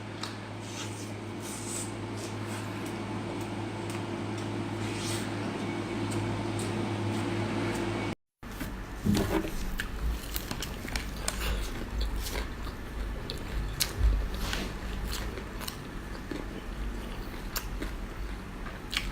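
Close-up eating sounds: biting and chewing fatty meat, with wet, squishy mouth noises and many small clicks. A steady low hum sits under the first part, which ends at a cut about eight seconds in.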